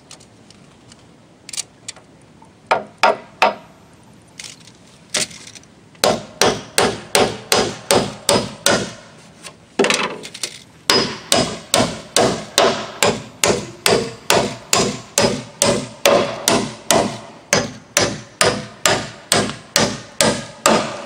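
Hammer driving nails into redwood deck planks: a few scattered taps at first, then steady blows about two or three a second with a short break partway through.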